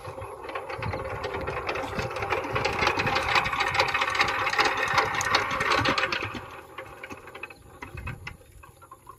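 Power tiller's single-cylinder diesel engine running with a rapid, knocking clatter that falls away about six and a half seconds in.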